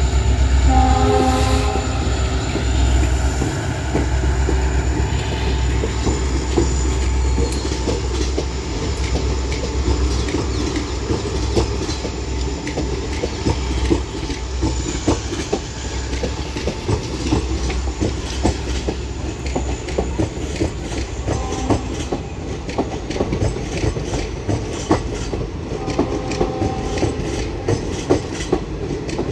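Coaches of a diesel-hauled express train passing close by: a steady rumble with rapid clickety-clack of wheels over the rail joints. About a second in, the twin WDP4D diesel locomotives at the head sound a brief horn chord, and their low engine rumble eases as they draw away.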